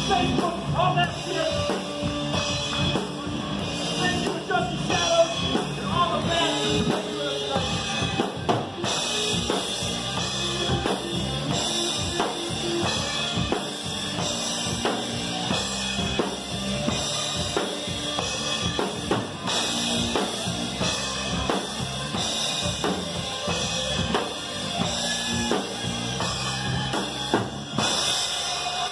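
Live rock band playing: a drum kit with bass drum and cymbals over electric guitars, steady and loud.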